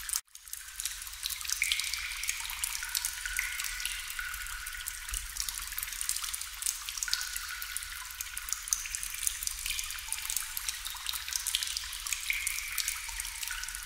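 Water drops falling into water: a dense, irregular patter of clicks and short ringing plinks over a steady trickling hiss. The sound cuts out for a moment just after the start.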